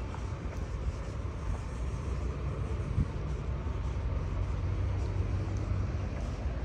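Steady city traffic noise, a low rumble of passing cars and buses, with one short thump about three seconds in.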